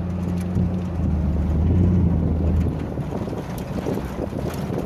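Pickup truck driving on a gravel road, heard from its open bed: a steady low drone from the truck that stops a little under three seconds in, over wind buffeting the microphone and the rumble of tyres on gravel.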